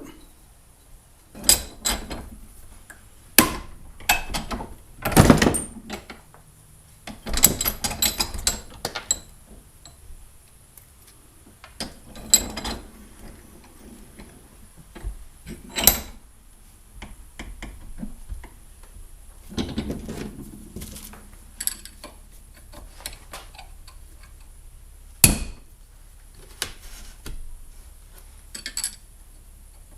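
Trolling motor parts being handled and fitted together during a rebuild: irregular clicks and knocks, about a dozen in all, with short stretches of rattling and scraping between them.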